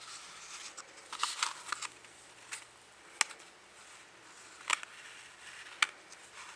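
Gloved hands handling a slim Zippo lighter and its packaging: rustling at first, then a few sharp, separate clicks.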